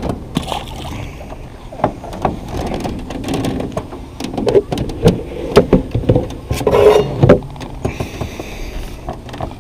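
Knocks, clicks and clunks of fishing gear being handled on the deck of a small fishing boat, a few sharper knocks in the middle, over a low steady rumble.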